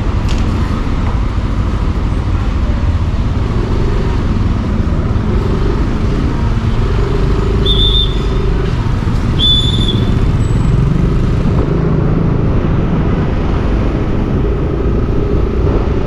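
Motorcycle engine running, with road and traffic noise while riding through city streets. Two short high-pitched beeps come a second and a half apart near the middle.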